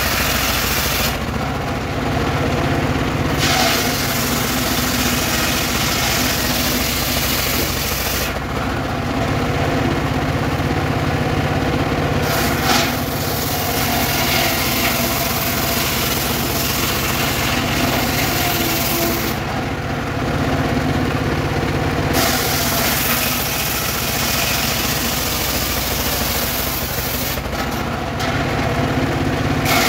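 Engine-driven mobile circular saw ripping weru-wood boards lengthwise. The engine runs steadily under the hiss of the blade cutting through the wood. The cutting sound breaks off four times for a few seconds while the blade spins free between passes.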